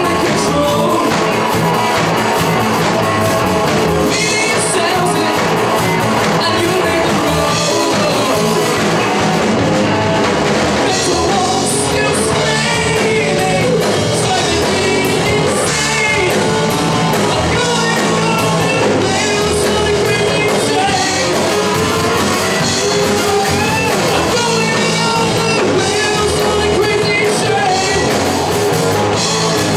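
Live hard rock band playing: electric guitar, bass and drum kit at full volume, with a singer's voice coming in over the band in parts. The sound is a room recording taken from among the audience in the hall.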